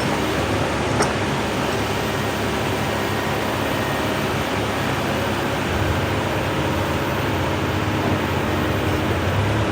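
Hydraulic excavator's diesel engine running steadily under a haze of mechanical noise, with one sharp click about a second in and a deeper engine note coming up after about six seconds.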